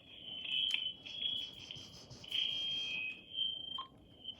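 Acoustic feedback from a cordless phone's speakerphone: a wavering high whistle that rises and falls in strength, with a keypad click and a short beep partway through.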